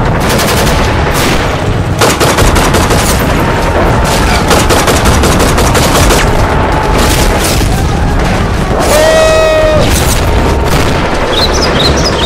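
Sustained rapid gunfire: a dense stream of rifle and machine-gun shots in quick succession. About nine seconds in, a held tone sounds for about a second, and short high chirps come near the end.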